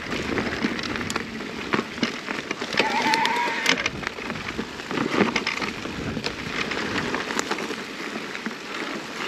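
An electric mountain bike riding over a rough, stony trail: tyres crunching and rolling, with frequent small clicks and rattles. A short whine comes about three seconds in.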